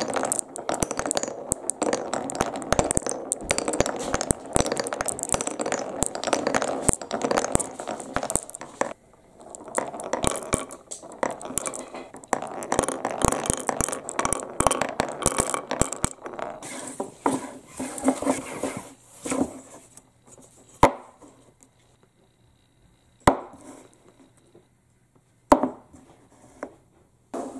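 Glass marbles rolling and clattering through the grooved channels and drop holes of a wooden Cuboro marble run, a dense stream of clicks and rolling rattle. After about twenty seconds it gives way to a few separate wooden knocks as the blocks are set down one at a time.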